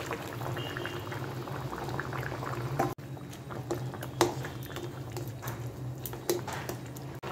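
Moong dal bubbling at a boil in a pan, with a spatula stirring through it and a few sharp clinks against the pan.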